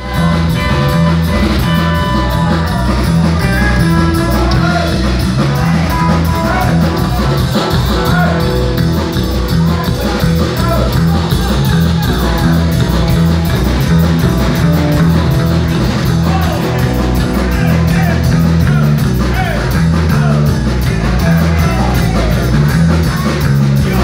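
A live rock band with electric guitars and a drum kit, playing loud and steady, heard from the room.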